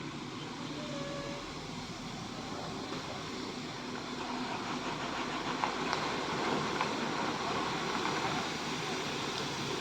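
A bus engine running, its sound building slightly in the second half, with no horn sounding.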